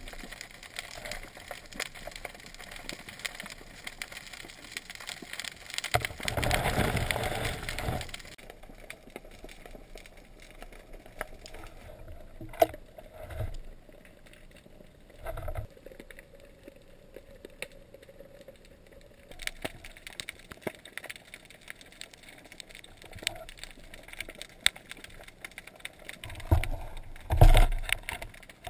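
Underwater ambience picked up by a camera in its housing: a low wash of water noise with scattered sharp clicks and knocks, a louder rushing, bubbling burst about six seconds in, and a few thumps near the end.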